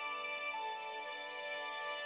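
Computer playback of a band score from Finale notation software: synthesized band instruments holding long sustained chords, moving to a new chord about half a second in.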